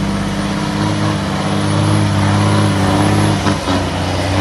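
Heavy logging truck's diesel engine running steadily under load, a low, even drone.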